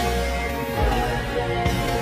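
Instrumental music played back sped up, with sustained notes over a steady bass.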